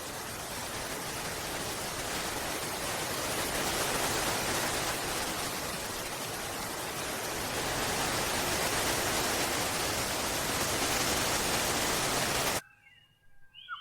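Steady, dense hiss of rushing water from a nature soundtrack, swelling slightly. It cuts off abruptly near the end, and short rising and falling whistled bird chirps begin.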